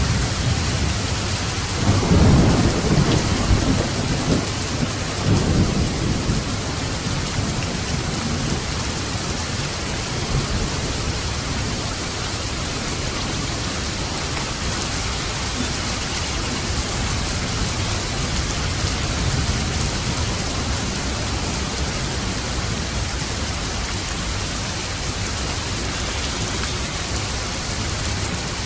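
Steady rain falling, with a low rumble of thunder that swells up about two seconds in and rolls on for a few seconds before fading back into the rain.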